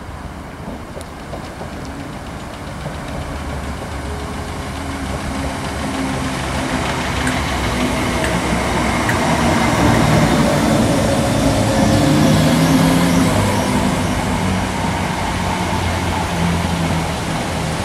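BREL-built Class 318 electric multiple unit running past, with the rumble of its wheels on the rails and a steady low hum from the traction equipment. The sound grows louder as the train approaches and is loudest about two-thirds of the way through, as the coaches go by close at hand.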